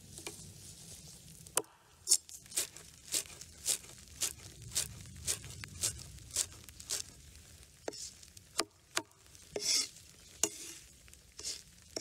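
Chef's knife chopping green onions and parsley on a wooden cutting board, after a soft rustle at the start. Steady strokes about two a second for several seconds, then a few slower, uneven cuts and a short scrape.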